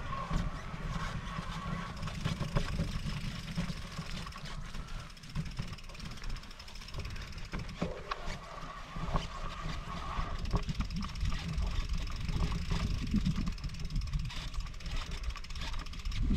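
Wind rumbling on the microphone during an electric mountain bike ride, over the rolling and rattling of the bike on a trail, with scattered clicks and a faint thin whine coming and going.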